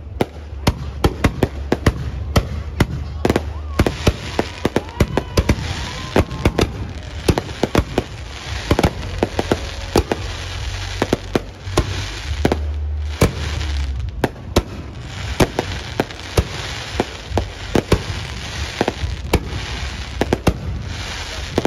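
Fireworks display: a rapid, unbroken series of sharp bangs, several a second, over continuous crackling and a steady low rumble.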